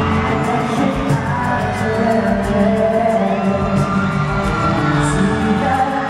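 Live pop music from a singer and band in an arena, recorded from among the audience, with some crowd whoops underneath.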